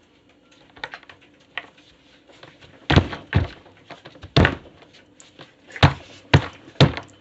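Fidget toys being stepped on: an irregular series of sharp thuds and pops, about eight in all, with the loudest ones in the second half.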